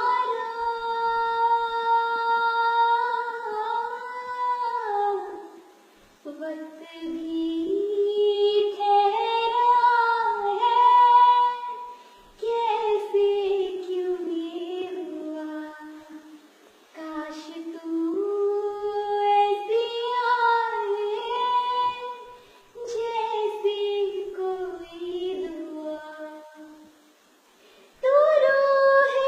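A high solo voice singing a melodic song unaccompanied, in about six phrases with long held notes and gliding ornaments, pausing briefly between phrases.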